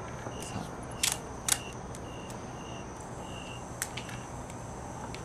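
Sharp clicks and snaps of a roll of cellophane tape being handled as pieces are torn off: two close together about a second in, a weaker one near the end. A faint, short high chirp repeats about every half second behind it.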